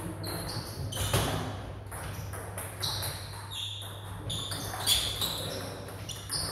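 Table-tennis ball being struck and bouncing, sharp pinging clicks every second or two over a steady low hum.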